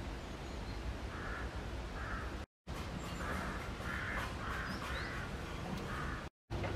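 Crows cawing: two caws near the start, then a quick run of five in the middle, over a steady low rumble. The sound cuts out completely for a moment twice.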